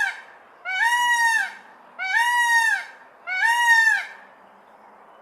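An animal calling four times at even intervals, about one call a second. Each call is a loud, pitched note about two-thirds of a second long that rises briefly, holds, and falls away at the end.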